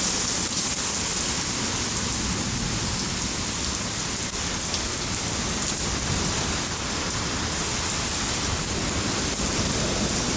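Heavy rain falling steadily on a concrete driveway and lawn: a dense, even hiss that doesn't change.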